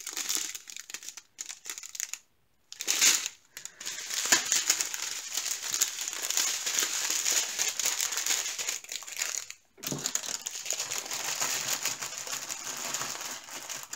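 Clear plastic packaging crinkling as it is handled: a strip of small sealed bags of diamond-painting drills and plastic wrapping. It comes in short bursts with brief silences over the first few seconds, then runs almost without a break.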